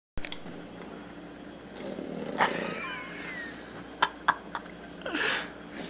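Bulldog puppy snoring while awake: rough, noisy breaths, one about two and a half seconds in carrying a squeaky whistle, another near the end. Three sharp clicks come in quick succession about four seconds in.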